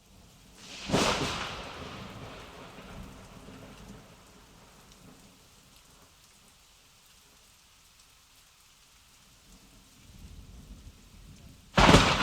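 A thunderclap: a sudden loud crack about a second in that rumbles away over a few seconds. A second loud crash comes near the end.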